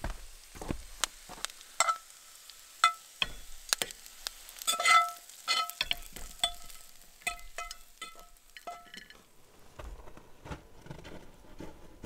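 A metal utensil clinking against a speckled enamelware plate as food is served from a cast-iron skillet: a series of sharp clinks, each with a short ring at the same pitch, loudest about five seconds in.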